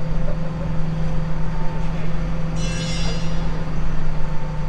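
Farm tractor engine running steadily, with a brief high-pitched squeal about two and a half seconds in.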